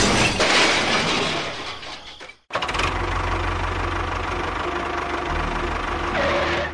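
Tractor engine sound running with a low, fast chugging. A loud, noisy stretch at the start fades away and cuts to silence about two and a half seconds in, then the steady chugging resumes.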